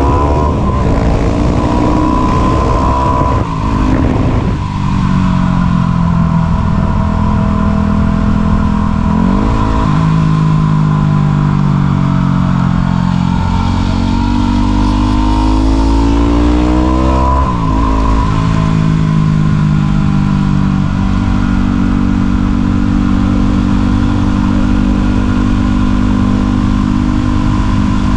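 Yamaha WR250 supermoto's single-cylinder four-stroke engine running while riding, rising and falling in pitch as it speeds up and eases off, with sharp breaks about 4, 9 and 17 seconds in.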